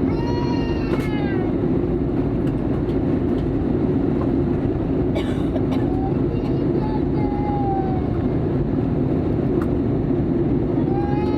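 Steady cabin noise of an Airbus A320 airliner in flight, with a small child crying out in high wails at the start and again near the end, and a fainter wail in the middle.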